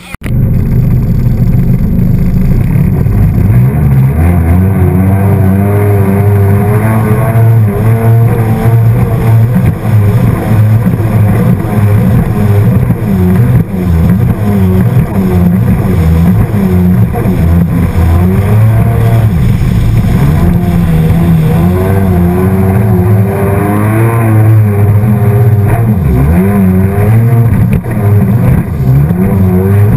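A personal watercraft or boat engine running at speed close to the microphone, its pitch wavering up and down, with a steady rush of wind and water. It cuts in abruptly at the start.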